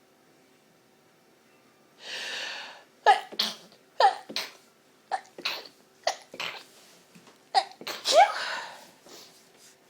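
A person sneezing from pepper: a quick breath in, then a rapid fit of about a dozen short, sharp sneezes.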